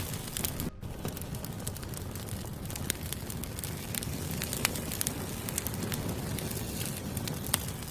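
Wood fire burning: a steady low rumble and hiss with many scattered sharp crackles and pops from the burning logs. The sound cuts out briefly about a second in.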